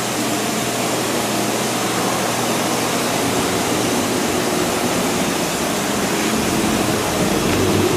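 Steady rushing background noise with a faint low hum, unchanging throughout, like machinery or ventilation air in a large room.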